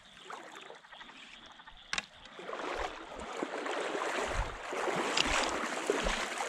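Someone wading through shallow creek water, the splashing growing louder from about two and a half seconds in, with dull low thumps of steps. A single sharp click comes about two seconds in.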